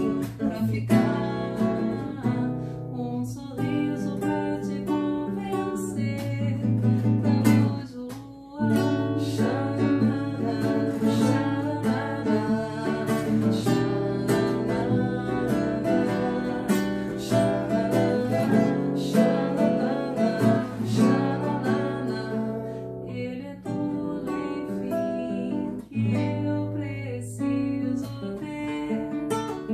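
Classical nylon-string guitar playing a melodic passage of plucked notes and chords, with a brief pause about eight seconds in.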